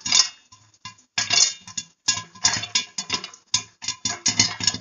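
Popcorn kernels popping in hot oil in a lidded stainless steel pan: many sharp, irregular pops in quick clusters, the popped kernels clinking against the pan and its glass lid.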